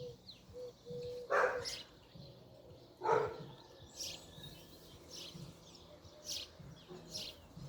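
Outdoor birds chirping in short scattered calls, with two brief louder sounds about a second and a half and three seconds in.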